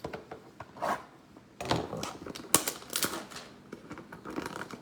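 Cardboard trading-card hanger box being handled and pried open: a run of irregular sharp clicks and scratchy rustles, the loudest about two and a half seconds in.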